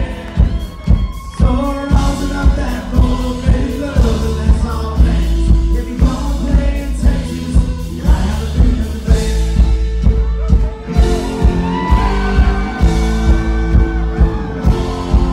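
Live band music: drums keep a steady beat under a lead melody line and bass.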